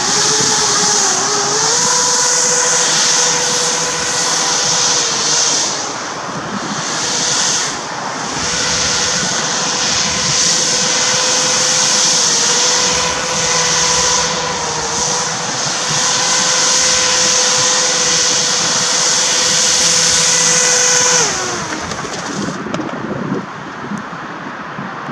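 Battery-electric RC hovercraft's motors and propellers running: a steady whine with rushing air. The pitch rises about a second and a half in, dips briefly a few times, then winds down and stops about 21 seconds in as the craft comes to rest.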